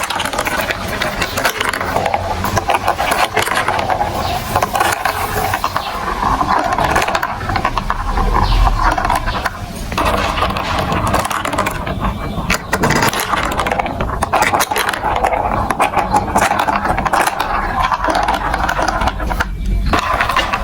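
Marbles rolling and clattering along a plastic building-block marble run: a steady rattle made of many small clicks.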